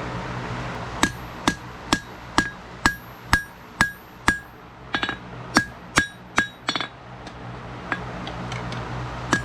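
Hand-forging hot wootz steel on an anvil with a 3-pound dog's head hammer: a run of hammer blows about two a second, each with a short bright ring, after a moment of steady hum. The blows pause briefly near the end, then start again.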